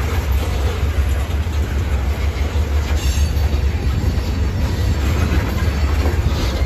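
Freight train of loaded tank cars rolling past, a steady low rumble of steel wheels on rail with a couple of clacks as wheels cross rail joints.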